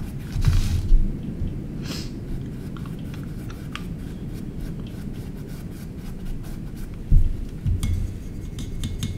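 A paintbrush scrubbing paint onto a small canvas, with scattered light taps and a sharper knock near the end, over a steady low hum.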